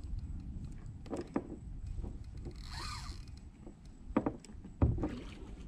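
Handling noise and a few light knocks on plastic kayaks, with a short hiss about three seconds in.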